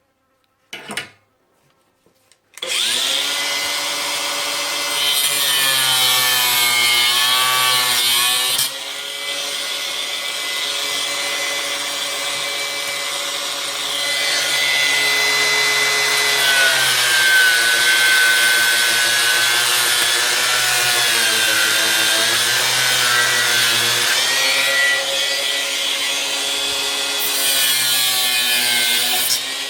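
Small hand-held power tool cutting into the plastic case of a lead-acid car battery. After a brief blip it runs continuously from about three seconds in, its motor pitch sagging and recovering over and over as the cutter bites into the plastic.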